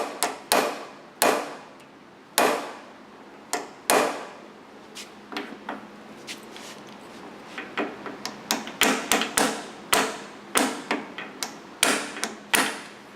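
A hammer striking a small punch against the wedged-over metal tabs of a Rolls-Royce Silver Shadow door lock solenoid's end plate, driving the tabs back to free the plate. The sharp metallic strikes come at irregular spacing, each with a brief ring: a few spaced blows, then a quicker run of lighter taps over the last five seconds.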